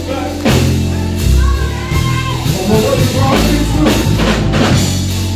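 Live church band playing, with bass guitar holding low notes under regular drum hits and a voice singing over it through the sound system.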